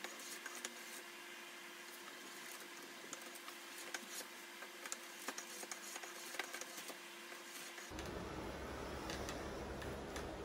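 Faint scraping strokes of a spokeshave cutting shavings off the corners of a square wooden blank, with small irregular clicks of the blade on the wood. A steady low hum runs underneath.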